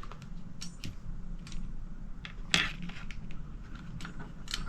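Scattered small clicks and taps of a ratcheting wire crimping tool and a butt connector being handled, with one sharper click about halfway through.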